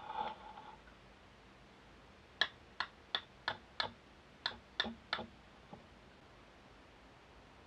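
Steel fire striker struck against flint to throw sparks, making sharp clicks: a quick run of five, then three more, and one faint one.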